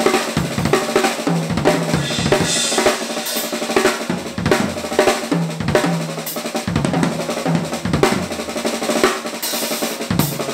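Drum kit played solo: quick snare strokes and rolls over bass drum, with a cymbal crash now and then, in a New Orleans drumming demonstration where one drummer covers both the bass drum-and-cymbal and snare parts.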